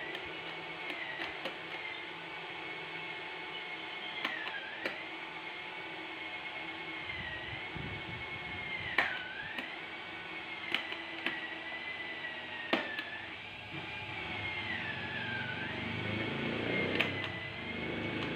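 Electric stand fan's motor running on test after repair of its dead motor: a steady high whine whose pitch sags and recovers several times, with a few sharp clicks. Near the end a low rumbling noise grows louder under it.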